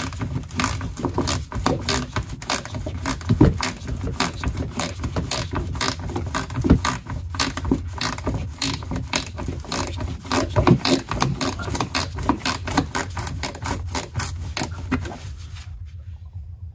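A hand tool driving screws into a Toyota Auris's plastic underbody panel: rapid, fairly even clicking mixed with rubbing, which stops about fifteen seconds in and leaves a low steady hum.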